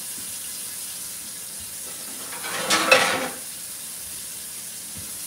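Kitchen dish noise: a steady hiss, and about two and a half seconds in a brief clatter of dishes lasting about a second.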